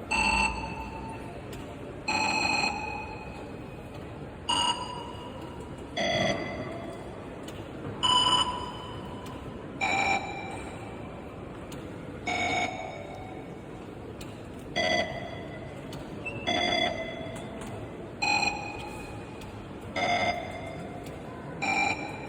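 Very high-speed Morse code from the RUFZXP callsign-copying program: a short, buzzing burst of tone about every two seconds, each burst one amateur radio callsign. Each burst is at a slightly different pitch.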